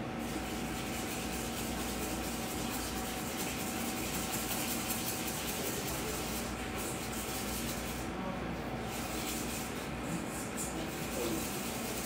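Hand-stirring soft creamed butter, powdered sugar and egg white in a stainless steel bowl, a steady soft rubbing and scraping over a constant room hiss.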